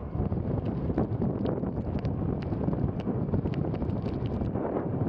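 Wind buffeting the microphone and road rumble from a pedal-powered recumbent vehicle rolling along asphalt at about 18 mph, a steady low rumbling noise with scattered light ticks.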